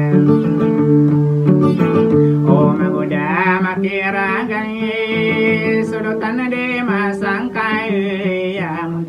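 A man singing to his own strummed acoustic guitar, holding long notes that waver in pitch.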